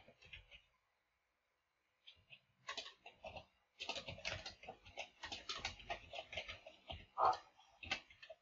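Typing on a computer keyboard: a few scattered key clicks, then a fast, steady run of keystrokes, with one louder keystroke near the end.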